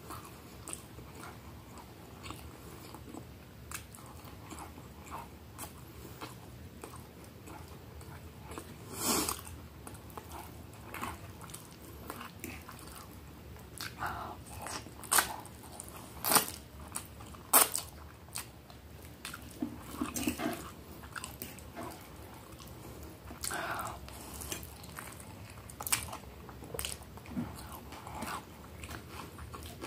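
A person eating close to the microphone, a meal of instant noodles and breaded fried cheese: irregular chewing with wet mouth clicks and smacks, and a few louder bites and crunches scattered through.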